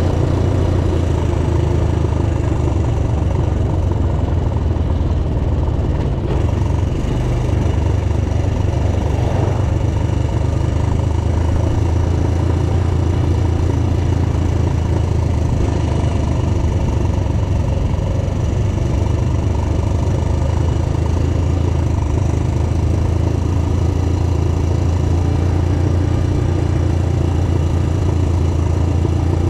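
ATV engine running steadily at an even pitch.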